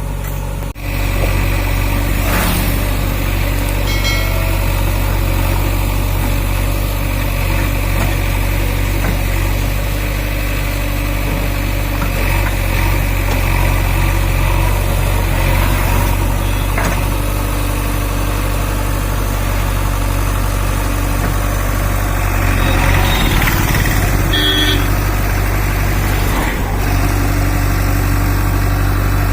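JCB backhoe loader's diesel engine running steadily, with a short break in the sound about a second in.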